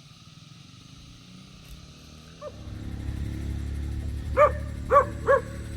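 A dog barking in agitation: one faint short bark about halfway in, then three loud barks in quick succession near the end. A low steady hum comes in underneath about halfway through.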